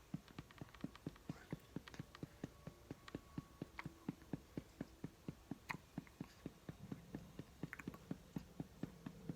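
A baby's soft, even mouth clicks, about four a second, with a few sharper hiccups roughly two seconds apart.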